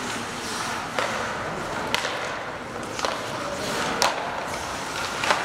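Hockey sticks and puck knocking on the ice rink, sharp separate knocks about once a second, over the steady noise of the arena.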